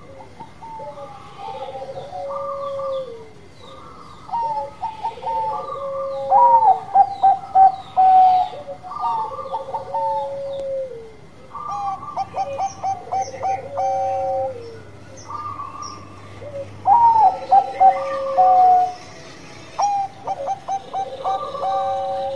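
Zebra dove (Bangkok-type perkutut) cooing its bekur song over and over: each phrase is a run of quick clipped notes followed by longer held, slightly falling notes. Faint high chirps of small birds come in about halfway through.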